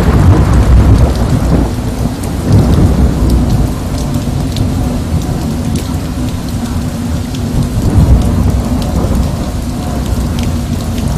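Steady rain with low rolling thunder, as a thunderstorm sound effect; the rumble swells near the start and again about eight seconds in.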